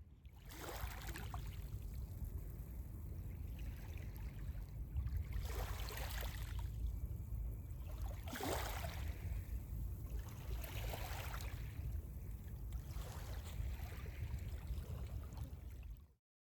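Sea waves washing onto the shore, five swells rising and falling every two to three seconds over a steady low rumble. The sound cuts off abruptly near the end.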